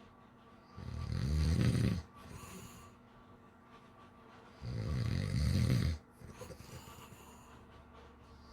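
Snoring from someone asleep: two long snores about four seconds apart, each lasting a little over a second, with quieter breathing between them.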